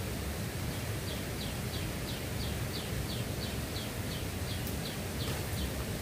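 A bird calling a fast, even series of about fourteen short high notes, each dropping in pitch, about three a second; it starts about a second in and stops near the end. Under it runs a steady outdoor hiss and low rumble.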